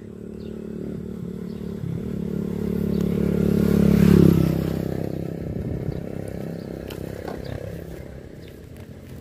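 A motorcycle engine passing by, growing louder to a peak about four seconds in and then fading away.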